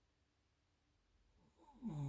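Near silence between breaths, then a sleeper's snore begins near the end: a low, buzzing, pitched snore that dips in pitch as it starts and quickly grows loud.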